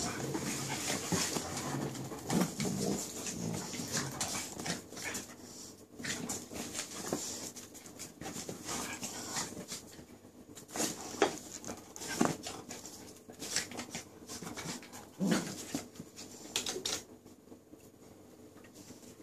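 A Vizsla and a corgi puppy play-fighting: irregular scuffling with sharp clicks and knocks, and a few short dog vocal sounds. It dies down near the end.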